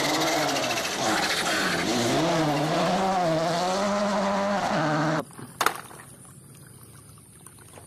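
Rally car engine revving hard at speed, its pitch rising and falling repeatedly. About five seconds in it cuts off suddenly to a quiet background with a single sharp click.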